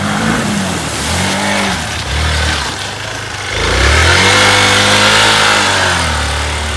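Hero Xpulse 200 dual-sport motorcycle's single-cylinder engine revving in short bursts, then held at higher revs for a few seconds, as the bike rides through a shallow stream and climbs out onto a dirt track.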